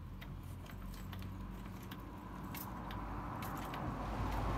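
Hydraulic trolley jack being pumped by its long steel handle, with scattered light metallic clicks and clinks from the handle and pump. A rushing noise builds and grows louder over the last second or so.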